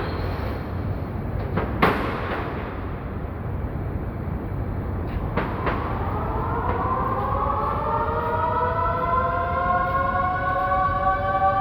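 Steady low machinery rumble with a couple of sharp knocks. About six seconds in, a motor-driven siren starts winding up, its several tones slowly rising in pitch together.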